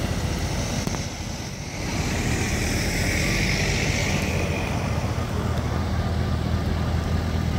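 Steady rumble of cars moving on the road, with a hiss that swells and fades about three seconds in.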